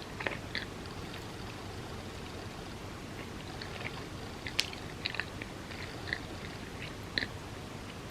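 A person chewing a bagel spread with cream cheese, with short wet mouth clicks and smacks at irregular moments over a steady background hiss.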